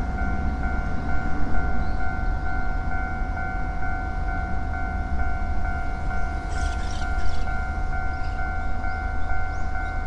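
Japanese railway level-crossing warning bell ringing steadily, an electronic ding repeating at an even pace over a low rumble. A brief rattle comes about seven seconds in.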